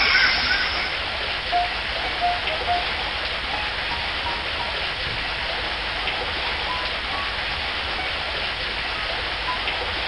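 Steady rush of a waterfall, an even noise of falling water with no change in level. A few faint, short high chirps sound over it.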